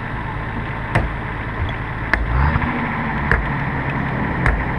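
Off-road 4x4 engine running while pulling a stuck vehicle out on a taut line; its note rises about two seconds in and then holds. Short sharp clicks come roughly once a second.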